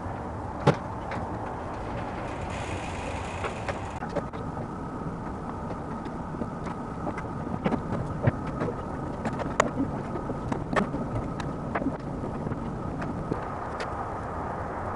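Scattered clicks and light knocks of a wrench and of metal and plastic parts being handled, over a steady hum and hiss. A faint steady whine comes in about four seconds in.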